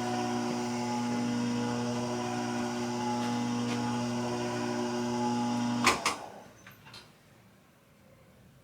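A steady electrical machine hum that stops about six seconds in with two sharp clicks, leaving faint room tone.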